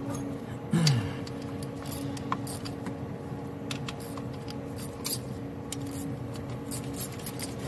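Scattered metal clinks and clicks from gloved hands handling the screw-type injector puller tool on the engine, with a short falling squeak about a second in. A faint steady hum runs underneath.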